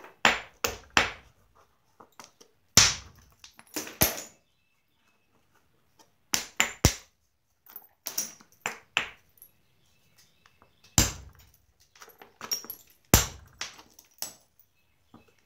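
Hammerstone striking the edge of a Georgetown flint biface, knocking off flakes by direct percussion: sharp cracks, irregularly spaced, often two or three in quick succession with pauses of a second or two between groups.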